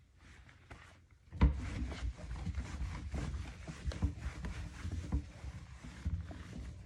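Cleaning a wooden kitchen cabinet: a sharp knock about a second and a half in, then steady rubbing and scrubbing with many small clicks and knocks.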